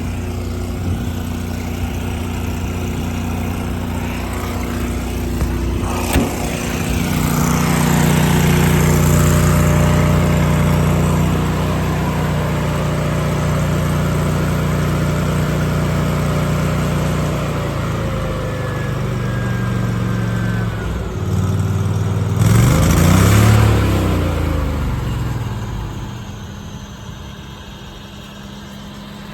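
Engine running steadily, louder from about seven seconds in, with a click about six seconds in and a brief rise and fall in pitch a little after twenty seconds, then quieter near the end.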